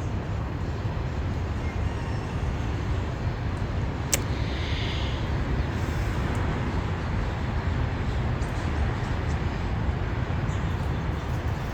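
Steady low outdoor background rumble, with a single sharp click about four seconds in.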